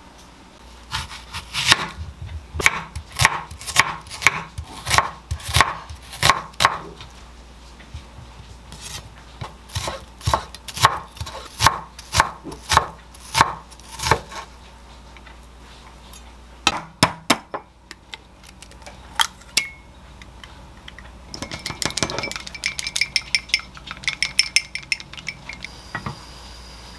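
Chef's knife dicing onion on a wooden cutting board, sharp strokes about two a second in runs. Near the end comes a quick, ringing clinking, like eggs being beaten in a glass cup.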